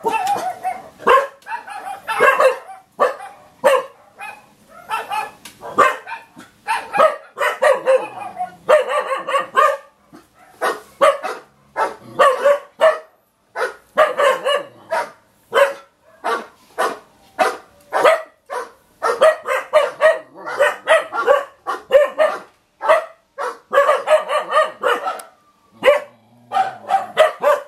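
Dog barking over and over in quick runs of short barks, with only brief pauses between runs.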